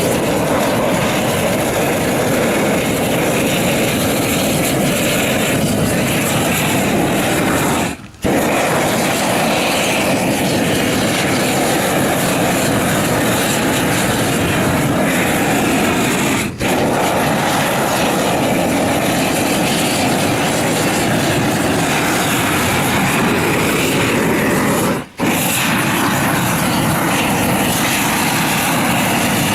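Gas roofing torch burning with a steady, loud roar, used to heat torch-on roll roofing. It breaks off for an instant three times.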